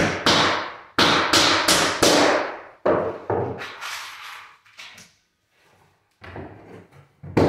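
Hammer driving small one-inch nails into a laminate stair tread: about eight sharp blows in the first three and a half seconds, each ringing briefly, then a few lighter knocks.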